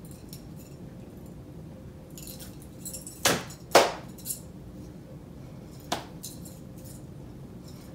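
Hands striking during action-song movements: two loud claps a little past three seconds in and a lighter slap near six seconds. Metal bracelets jingle lightly on the wrists as the arms move.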